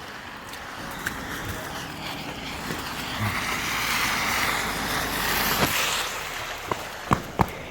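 A vehicle passing on the street, its noise swelling and then fading, followed near the end by a few sharp footsteps.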